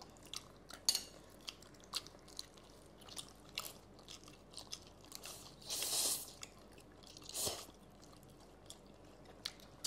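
People chewing food, with quiet scattered wet mouth clicks and smacks. There are two longer hissing swells, about six and about seven and a half seconds in.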